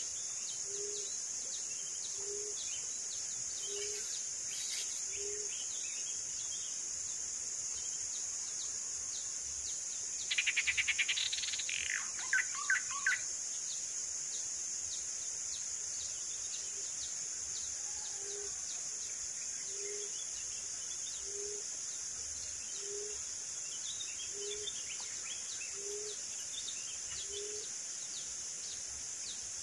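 Riverside forest ambience: a steady high insect drone throughout, with a low bird-like note repeated about every one and a half seconds. About ten seconds in, the loudest sound is a rapid bird trill, followed by three short calls.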